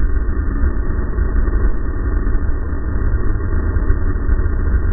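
Racing snowmobile engine running steadily at speed, heard from the sled itself as a muffled, even drone with a heavy low rumble.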